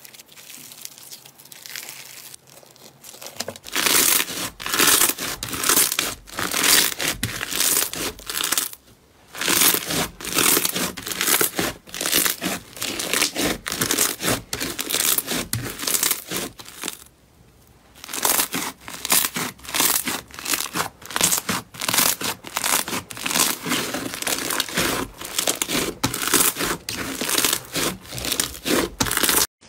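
Foam-bead slime (floam) being squeezed and kneaded by hand, giving dense crackling and crunching pops. The first few seconds are quieter, and the crackling breaks off briefly twice.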